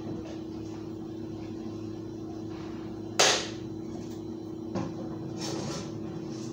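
A steady low hum, with a sharp knock about three seconds in, a lighter knock a second and a half later, and a short rustle soon after.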